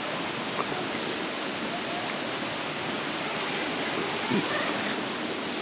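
Steady rushing of a river flowing past the campsite.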